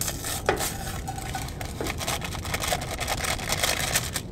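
A spoon stirring and scraping in a metal pot on a camp stove: a rapid run of clicks and scrapes, over a steady low rumble.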